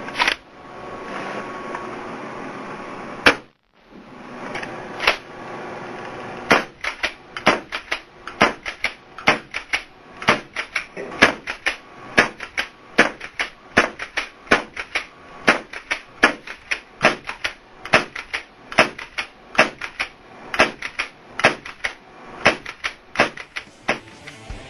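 CO2 paintball pump shotgun being fired and cocked. There is a sharp report about three seconds in, then from about six seconds on a long, even run of sharp clicks and pops, two or three a second, as it is fired and pumped over and over.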